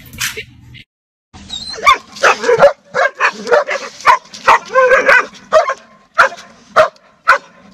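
A dog barking repeatedly at a cat. After a brief silence it starts about two seconds in with a quick run of barks, then settles into sharp single barks about twice a second.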